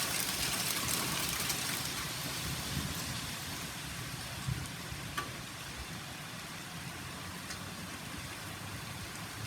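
Hail shower: a dense, steady patter of hailstones striking surfaces, slowly easing off, with a low steady hum underneath.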